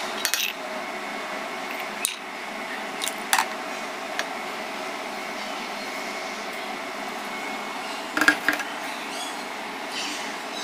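A steady fan-like hiss with a few light clinks and knocks of an enamel pot and dishes, the loudest cluster of clinks about eight seconds in.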